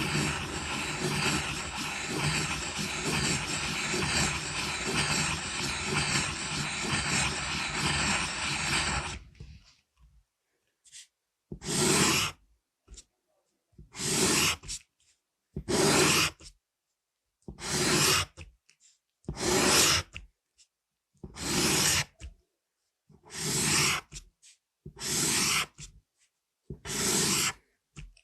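Pencil graphite scratching on paper: about nine seconds of continuous scribbling, then, after a short pause, a run of separate strokes, each about half a second long and about two seconds apart.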